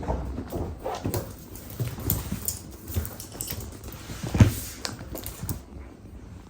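Cats scuffling at play: irregular knocks and rustles, with one loud thump about four and a half seconds in, quietening near the end.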